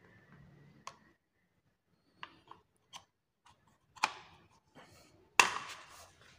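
Light clicks and knocks of a power cord, plug and plastic power strip being handled as the plug is pushed into the socket. They come scattered and separate, the loudest knock a little over five seconds in.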